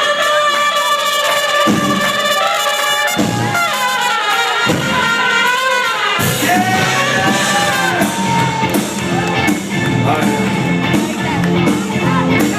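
A live brass horn section playing held notes with falls. The rest of the band comes in with a fuller low end about halfway through.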